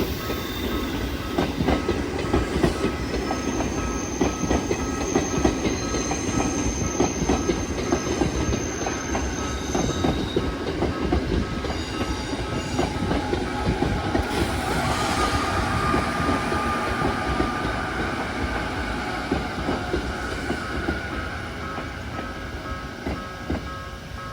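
An Izu Kyuko Line train running past a level crossing, its wheels clacking steadily over the rail joints, with a faint regularly repeating tone from the crossing's warning bell. The sound eases off a little near the end.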